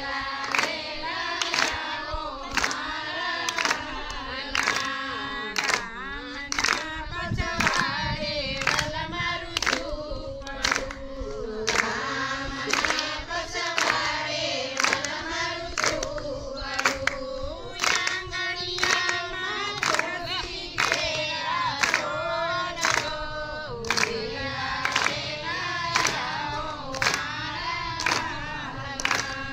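Voices singing a Gujarati Gor Maa devotional song (geet) for the Kantha Gor Maa pooja, with hand claps keeping a steady beat of about four claps every three seconds.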